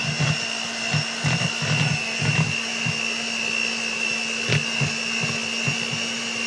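Electric hand mixer running steadily with a high motor whine, its beaters churning a thick refried bean and cream cheese mixture, with uneven low thuds.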